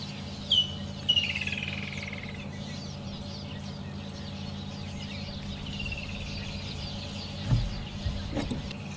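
Bird calls, a sharp note then a falling run of notes and another falling call later, over the steady hum of an idling vehicle engine, with a brief low thump near the end.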